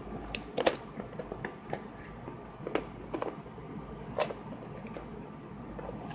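Light clicks and knocks at irregular intervals, from small objects being handled and set down while searching through parts for a replacement flex cable.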